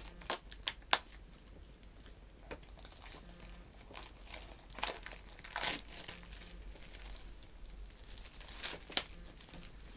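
Plastic wrapping on newly bought media being torn and crumpled by hand, with a few sharp clicks in the first second and bursts of crinkling around the middle and near the end.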